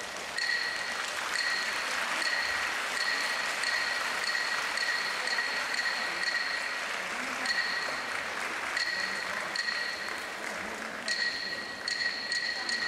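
Audience applauding, with a high beeping tone that pulses on and off about twice a second throughout.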